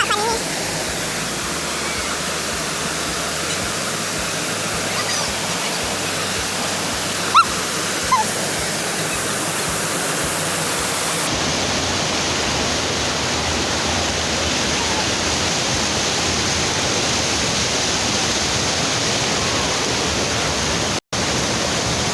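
Rushing water, a steady unbroken hiss. The tone shifts abruptly about eleven seconds in, and the sound cuts out for a split second near the end.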